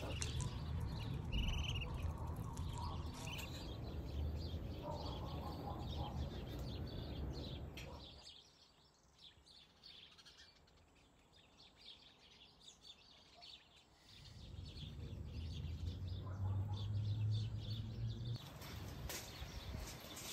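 A few short, high peeps from ducklings over a low, steady background rumble. The sound drops to near silence for several seconds midway, then the rumble returns.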